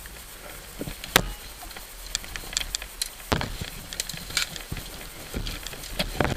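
Twigs and branches snapping and rustling as someone pushes through dense undergrowth, in a run of irregular sharp cracks. The loudest crack comes about a second in.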